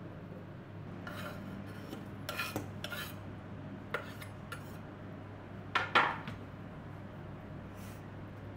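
Chopped spring onion scraped off a wooden cutting board into a stainless steel pot, first with a spoon and then with a knife, with scraping and light taps and a click about four seconds in. The loudest sounds are two sharp metal knocks against the pot about six seconds in.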